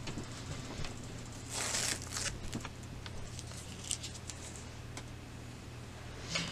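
Small scissors and hands working an embroidered pouch on paper-like embroidery stabilizer: a rustle of the stabilizer about a second and a half in, then a few light snips and ticks.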